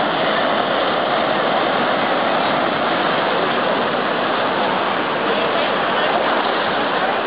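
Rough sea surf breaking and washing over shoreline rocks: a steady, loud rush of water.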